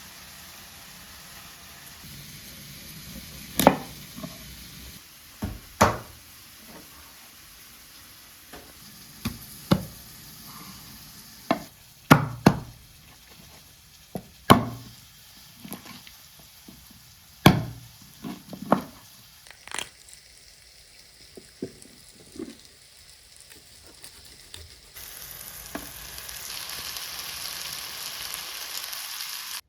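Cooking sounds: sharp knocks and clinks of utensils at irregular intervals over a low steady hiss, with a louder, brighter sizzling hiss setting in near the end.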